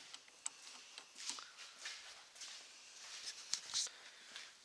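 Faint scattered handling noises: a sharp click about half a second in as the battery-terminal disconnect knob is turned, then light shuffling footsteps and rustles.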